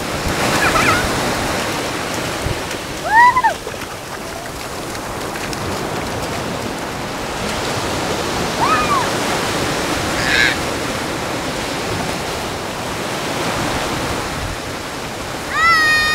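Surf washing steadily in the shallows, with a few short high-pitched cries over it and a louder one at the very end.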